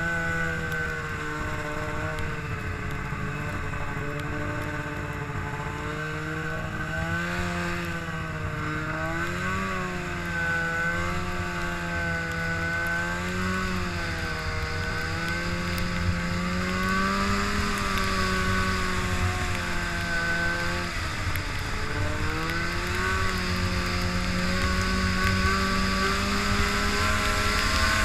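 Arctic Cat Firecat F6 snowmobile's two-stroke twin engine running under way, its pitch rising and falling with the throttle and climbing toward the end.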